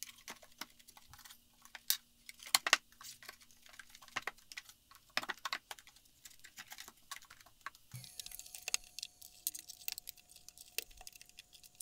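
Light, irregular wooden clicks and taps as cedar slats and small thin-plywood spacer squares are set down into a wooden frame and pressed into place by hand.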